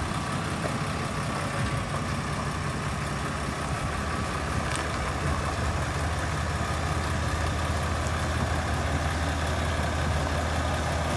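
Lifted pickup truck's engine idling steadily with a low, even hum.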